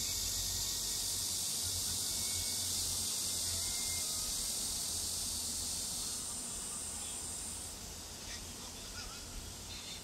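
A steady, high-pitched chorus of summer insects that eases off about six seconds in.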